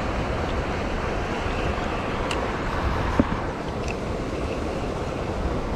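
Steady rushing of water below a dam spillway, an even wash of noise. A single sharp click comes about three seconds in.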